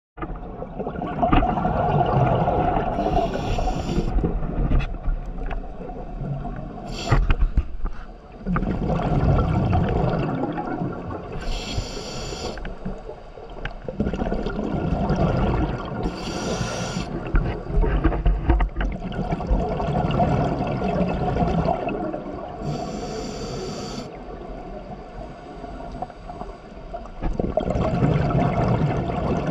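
Scuba diver breathing underwater through a regulator: a short hiss on each inhale, about four times, between long bubbling gurgles of exhaled air.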